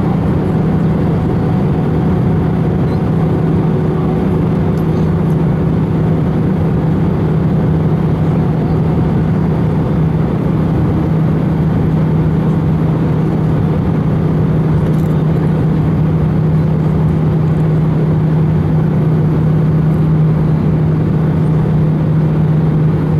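Steady cabin noise of an Airbus A319 in flight, heard from a window seat over the wing: a constant low drone from the turbofan engines with airflow hiss, unchanging throughout.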